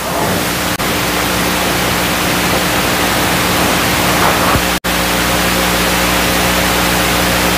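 Loud, steady hiss with a low steady hum underneath, cutting out for an instant a little under five seconds in: noise on the chamber's audio feed while no microphone is in use.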